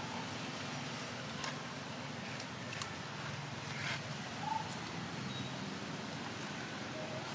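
Outdoor background: a steady low hum with a few faint clicks, and one brief high chirp about four and a half seconds in.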